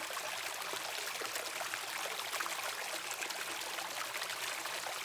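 Mountain valley stream flowing, a steady rush of water with many small splashes and trickles.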